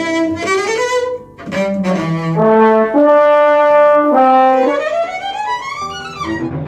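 Orchestral music: brass and strings play a series of held chords, then rise together in a sweeping glide near the end.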